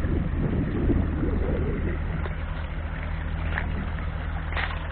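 Wind buffeting the microphone: a steady low rumble, rougher and gustier in the first two seconds.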